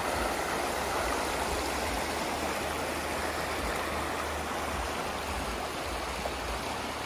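Shallow creek running steadily over rocks, its water rushing and splashing through a low riffle of stones.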